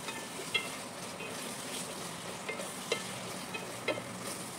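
Raw chicken pieces sizzling in oil and spice paste in a pot, stirred with a wooden spatula that knocks against the pot a few times.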